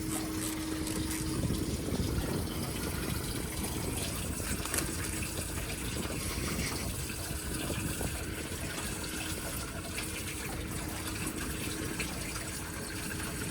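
Steady gush of running, splashing water, with a few light knocks.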